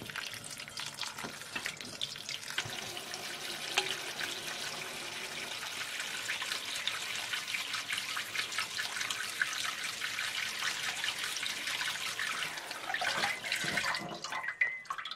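Kitchen tap water running into a stainless steel sink, splashing through a plastic mesh strainer of kefir grains that is shaken under the stream. The water stops about a second before the end, followed by a few light knocks.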